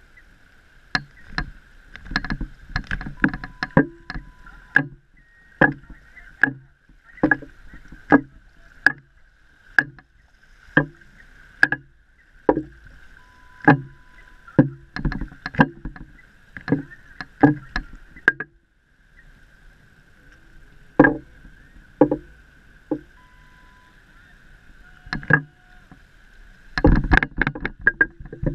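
Water sloshing and slapping against a camera at the surface of shallow sea, in irregular splashes about once or twice a second, with a lull of a couple of seconds past the middle and a quick flurry of splashes near the end.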